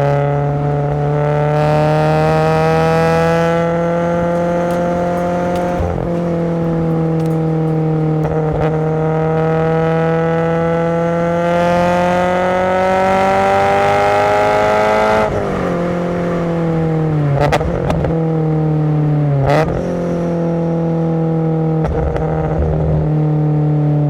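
Subaru BRZ's FA20 flat-four with SARD individual throttle bodies, driven hard: the revs climb, dip at a gear change about six seconds in, and climb again for a long pull. After lifting off about fifteen seconds in, the engine gives two short, sharp throttle blips, typical of rev-matched downshifts into a corner, then runs on steady.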